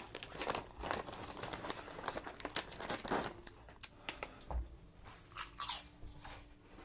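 Irregular crunching of potato chips being bitten and chewed, mixed with the crinkle of a foil chip bag being handled; the crunches come thick at first and thin out in the second half.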